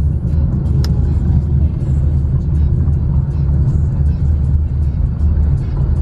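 Car driving, its engine and road rumble heard from inside the cabin, with music playing over it.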